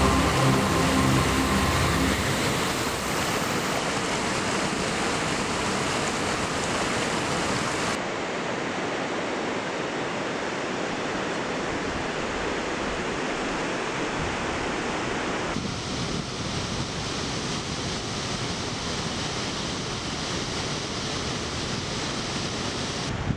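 Whitewater rushing over rocks in a mountain river and waterfall: a steady, even rush of water. Its tone changes abruptly at cuts between shots, about 4, 8 and 15 seconds in.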